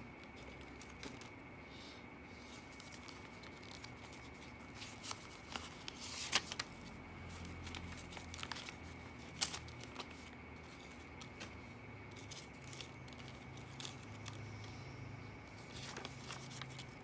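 Paper dollar bills rustling and crinkling as they are handled and one is drawn from a stack, with a few sharper crackles, the loudest about six and nine seconds in.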